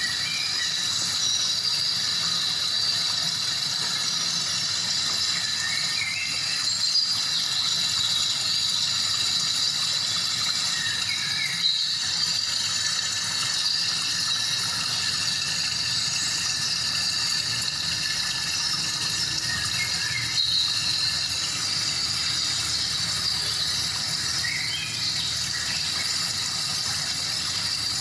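Steady rush of a waterfall, with a continuous high whine over it and short chirps every few seconds.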